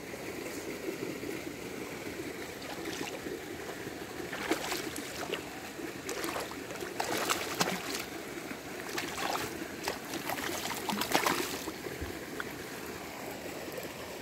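Hooked trout splashing and thrashing at the surface close to the bank as it is played in, in irregular bursts of splashes over a steady watery hiss.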